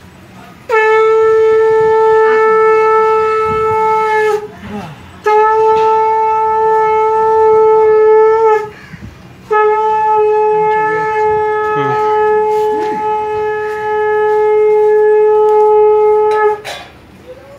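Conch shell (shankha) blown three times, each a long, steady, loud note, the third the longest.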